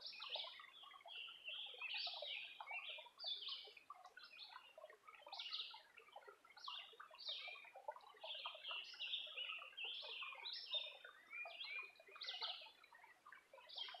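Several songbirds singing at once: a dense chorus of short, high chirps and trills overlapping without a break.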